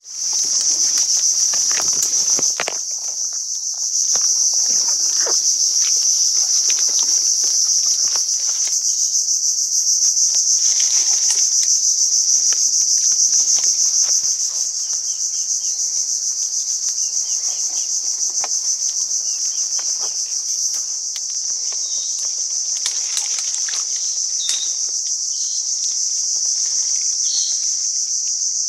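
Loud, steady, high-pitched drone of insects, with irregular footfalls and rustling as someone pushes through mangrove branches.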